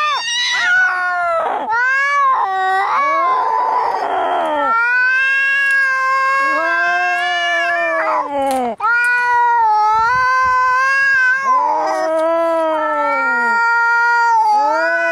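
Angry cats yowling as in a cat fight: long, wavering wails one after another, with a harsh, rasping stretch about four seconds in.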